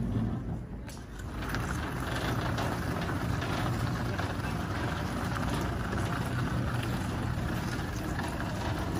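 Six-wheeled hybrid robotic ground vehicle driving on pavement: a steady mechanical running sound with a low hum, louder and fuller from about a second and a half in.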